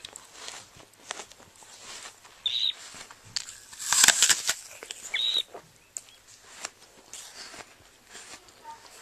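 Bird wings flapping among scattered rustles, loudest in a burst about four seconds in, with two short high chirps.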